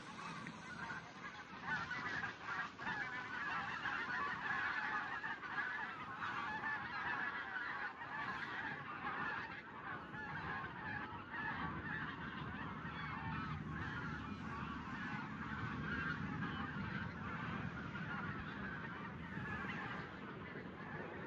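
A flock of wild geese on spring migration honking continuously, many calls overlapping into a steady chorus that swells about two seconds in.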